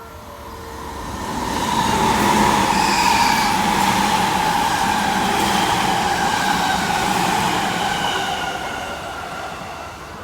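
Passenger train running: a loud rumble with a whine through it, swelling over the first two seconds and easing off slightly toward the end.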